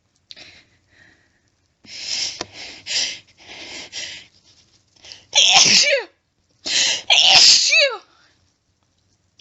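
A woman's loud, wet sneezing fit into a washcloth: a few faint breaths, then a run of short, rough breathy gusts, then two loud sneezes in quick succession past the middle, each ending in a voiced cry that falls in pitch.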